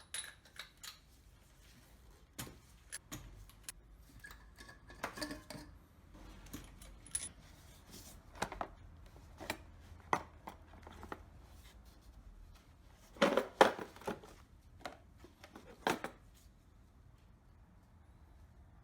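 Scattered clinks and knocks of small metal objects being handled, a few of them ringing briefly, with the loudest cluster about thirteen seconds in.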